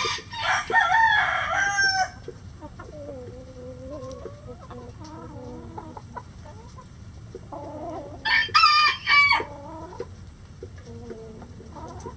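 A rooster crows twice, once at the start for about two seconds and again about eight seconds in. Hens cluck softly in between and near the end.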